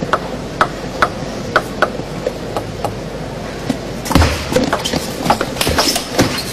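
Table tennis ball clicking sharply off paddles and the table in a doubles rally, about two clicks a second, with a low thump among denser clicks about four seconds in.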